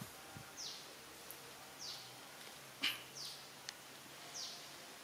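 A bird calling outdoors: a short, high note that falls in pitch, repeated four times about every second and a quarter. A single sharp knock sounds just before the middle, louder than the calls.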